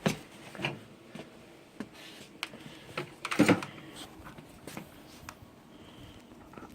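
Scattered clicks and knocks of hands working on the parts of a desktop computer, with a sharp knock at the start and a louder cluster of knocks about three and a half seconds in.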